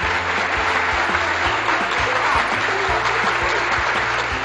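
Applause sound effect: many hands clapping in a dense, steady patter, laid over a background music track.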